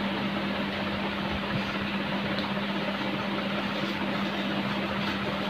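An electric fan running: a steady whir with a constant low hum.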